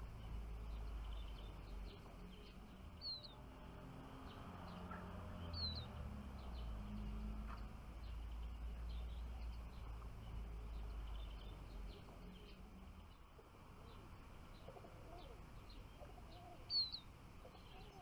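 Small songbirds giving short, sharp falling chirps: three clear ones, about three seconds in, near six seconds and near the end, the last the loudest, with faint twittering between them. A low rumble runs underneath.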